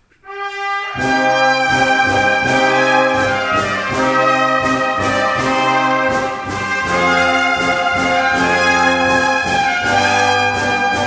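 Brass sextet (two trumpets, horn, trombone, euphonium, tuba) with drums playing a Japanese song arrangement: a single held note, then the full ensemble comes in about a second in over a steady drum beat.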